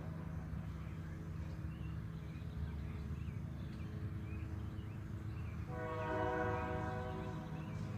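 A horn sounding one long blast of nearly two seconds near the end, over a steady low rumble.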